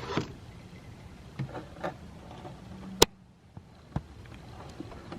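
Scattered clicks and knocks of hands and a C-clamp being worked inside a car door, with one sharp click about three seconds in and a few lighter ones around it.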